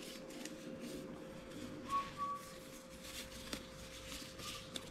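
Nitrile gloves rustling as they are pulled on, with a few short whistle-like notes about two seconds in and once more near the end, over a faint steady hum.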